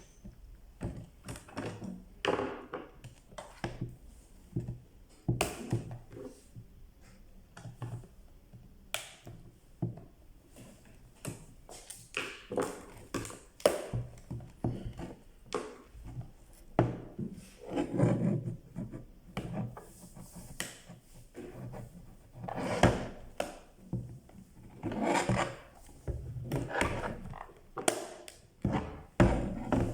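Irregular handling noises: clicks, knocks and scraping as a clothes iron's plastic housing and parts are worked on by hand.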